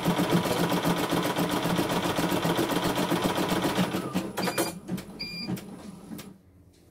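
CNY E900 computerized embroidery machine stitching at a rapid, even rate, then stopping about four seconds in. A few clicks and a short electronic beep follow as it halts at the end of one thread colour.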